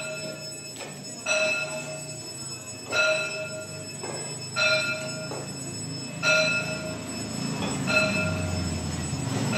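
A bell-like chime struck about every one and a half seconds, each stroke ringing out, over a low steady drone: a calm, meditative sound.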